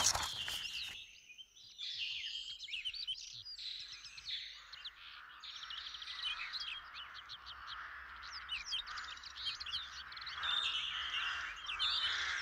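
Many small birds chirping in quick, short calls over a steady background hiss, opening with a brief burst of noise.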